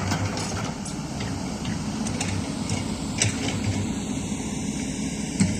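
Kobelco excavator's diesel engine running steadily, with two sharp knocks, one about three seconds in and one near the end.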